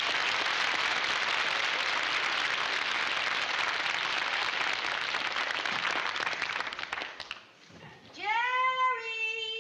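Studio audience applauding, dying away about seven seconds in. Near the end comes one long pitched squeal that rises and then holds steady for about a second and a half.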